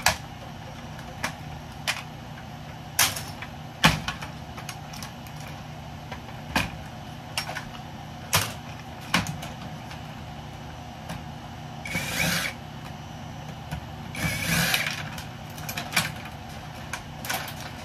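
Hand work on a scrap electrical panel: irregular metal clicks and knocks from pulling wiring and parts loose, with two short scraping bursts about twelve and fourteen seconds in, over a steady low hum.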